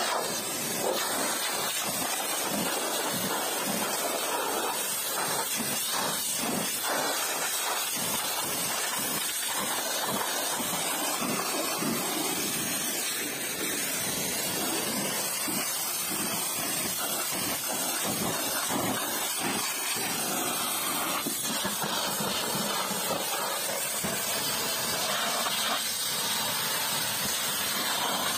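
Pressure washer's high-pressure water jet spraying steadily against a car's bodywork and wheels.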